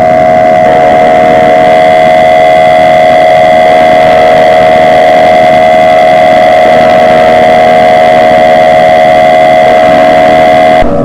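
Emergency Alert System attention signal: one loud, steady electronic alert tone held unbroken for about eleven seconds, cutting off just before the end. It is the tone that comes before an emergency broadcast message.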